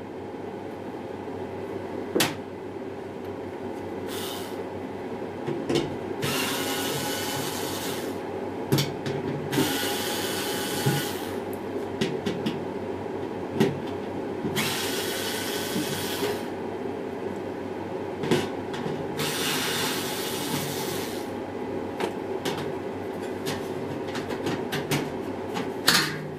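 Cordless screwdriver whirring in four short runs of about two seconds each, backing screws out of a washing machine's sheet-steel back panel. Clicks and knocks of handling come between the runs, and a loud knock near the end as the panel comes away.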